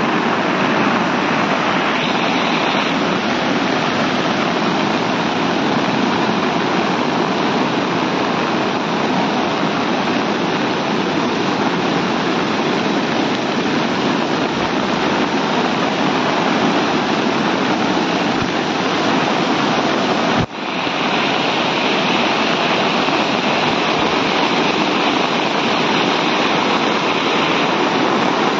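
Fast-flowing floodwater rushing and churning through rapids and waves, a loud steady noise; about two-thirds of the way through it cuts out for an instant and resumes.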